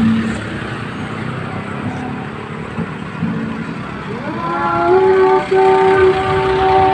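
Procession trucks passing at a slow crawl with their engines running. About four seconds in, a loud held tone slides up in pitch and then holds, stepping in pitch a couple of times.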